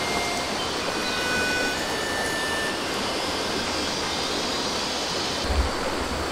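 Shallow stream flowing over rocks, a steady rush with a few short high tones over it, and one brief low thump just before the end.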